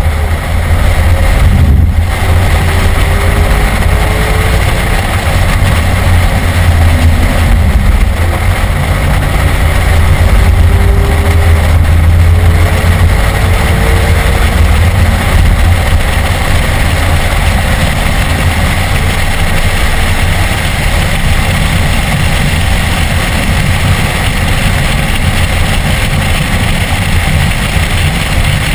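BMW E46 M3's 3.2-litre straight-six engine at racing speed, heard inside the cabin, rising in pitch several times as it pulls through the gears in the first half, then running steadier.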